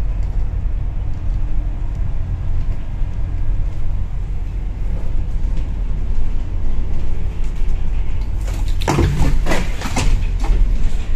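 Alexander ALX400 double-decker bus heard from the upper deck as it runs downhill: a steady low rumble of engine and road. About eight and a half seconds in comes a two-second flurry of scraping and clattering as overhanging tree branches brush along the upper deck.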